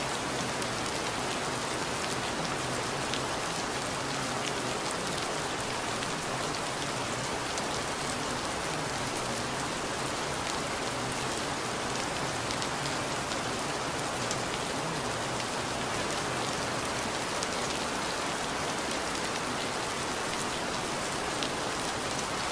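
Steady rain falling, an even hiss with faint scattered ticks of single drops.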